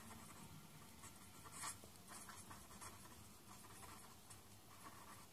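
Pen scratching on paper as words are handwritten, faint, with short strokes and one more distinct stroke about a second and a half in.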